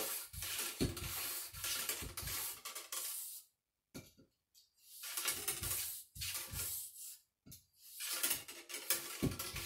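A cleaning rod and bore brush scrubbing up and down inside the water-filled barrel of a Traditions Kentucky black powder rifle, scouring out corrosive powder fouling. It makes wet, rasping strokes in three runs, with short pauses about three and a half and seven and a half seconds in.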